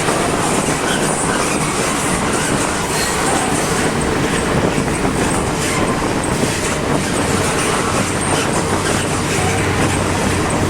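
A freight train rolling past, wagon wheels clacking steadily over the rail joints.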